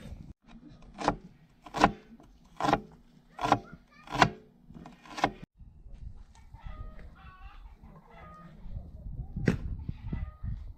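Six sharp chopping strikes, about one every 0.8 s, as of a heavy cleaver on a wooden board. In the second half, chickens cluck, with one more knock near the end.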